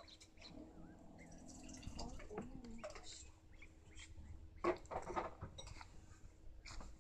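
Soft clicks and taps, loudest about five seconds in, from a kitten nosing at a plastic jar of water. A faint low voice murmurs in the first couple of seconds.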